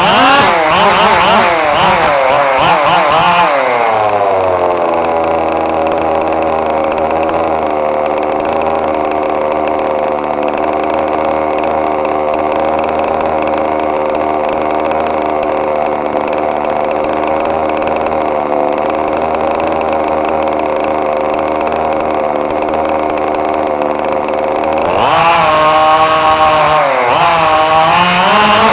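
Small RC car engine revving up and down, then falling and settling into a steady drone about four seconds in. The pitch holds for about twenty seconds before the engine revs up and down again near the end.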